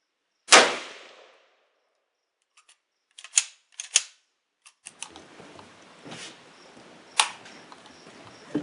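A single loud shot from a Yugoslav SKS M59/66A1 rifle in 7.62x39 about half a second in, followed a few seconds later by a quick run of sharp metallic clicks. Later a steady faint hiss, with two weaker sharp cracks near the end.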